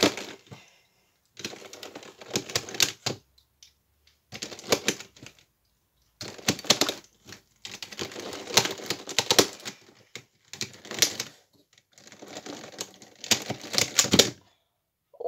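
Plastic 3x3 Rubik's cube pieces clicking and snapping as they are pushed into the cube one after another, in quick flurries of clicks with short pauses between them.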